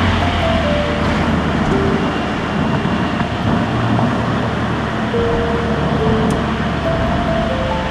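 Audi A4 B9's 2.0 TFSI turbocharged four-cylinder cruising at a steady pace: an even low engine hum under a constant wash of tyre and road noise.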